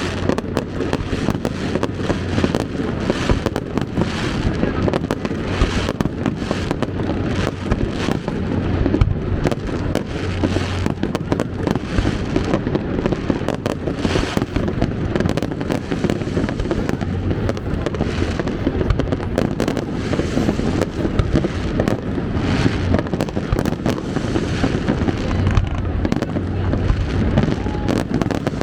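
Fireworks display: a dense, continuous run of bangs and crackles with no let-up.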